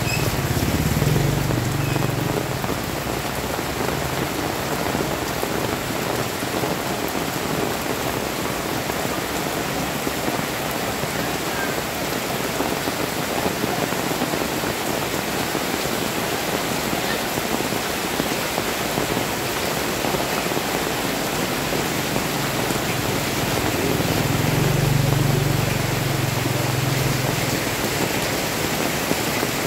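Heavy rain pouring steadily onto a wet paved street, a dense unbroken hiss. A motor scooter's engine hums past at the very start, and another swells up and passes about three-quarters of the way through.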